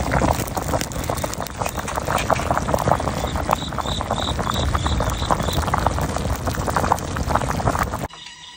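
Food bubbling and crackling as it cooks in a pot, a dense steady crackle that cuts off abruptly near the end.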